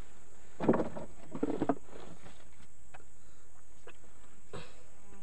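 Handling noises in a wooden boat as a netted catfish is held down: a scuff and knock about a second in, then a few lighter clicks and rustles.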